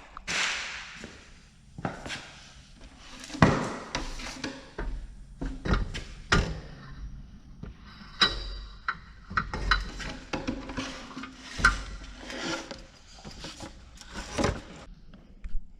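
Irregular knocks, clanks and rubbing of tools and metal parts being handled, with a short hissing scrape at the start.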